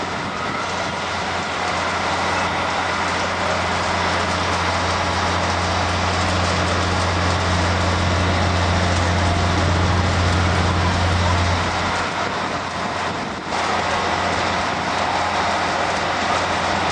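Steady low mechanical hum and rumble over a continuous wash of outdoor noise, swelling through the middle and easing off about twelve seconds in.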